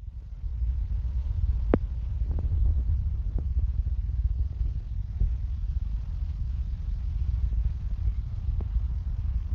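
Deep rolling thunder, a long sustained rumble that builds about half a second in and keeps going, with a few sharp ticks over it.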